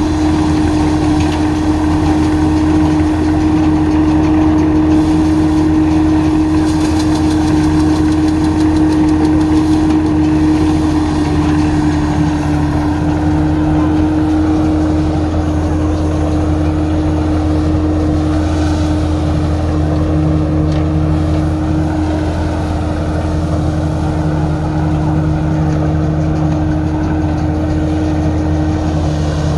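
Vintage threshing machine running steadily as wheat sheaves are fed into it: a constant mechanical hum with one strong steady tone, mixed with the steady running of the tractor engine that drives it by belt.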